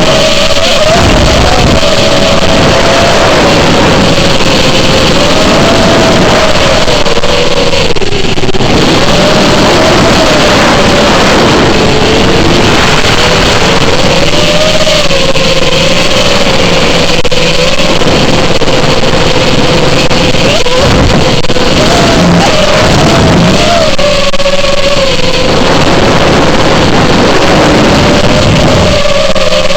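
FPV quadcopter's brushless motors whining loudly, the pitch wavering up and down with the throttle.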